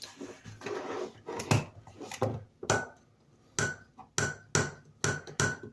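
Handling a metal multi-tool and its pouch: a soft rustle, then a run of sharp metallic clicks and knocks, several with a short ring, coming two or three a second near the end.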